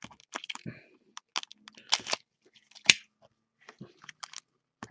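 Baseball card packs being opened and the cards handled: a run of irregular crinkles and sharp clicks.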